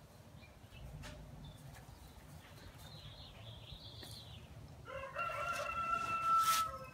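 A drawn-out, pitched animal call lasting about two seconds near the end, with a short loud rustle partway through it. Faint rustling and small knocks before it.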